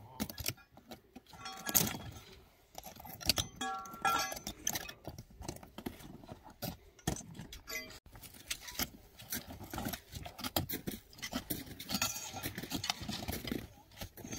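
Hiking gear being handled: irregular metallic clinks and jangling, mixed with rustling and scraping.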